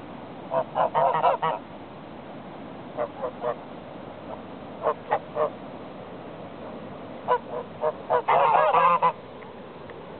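White domestic geese honking in short bursts of three or four honks, with a longer, louder run of honking near the end.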